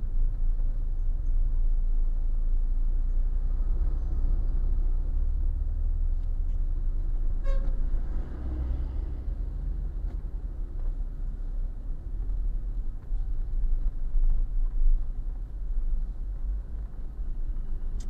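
Steady low road and engine rumble of a moving car, heard from inside, with one short horn toot about seven and a half seconds in.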